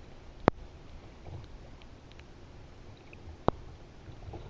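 Kayak on a choppy lake: faint, steady water swishing and lapping against the hull, with two sharp knocks about three seconds apart.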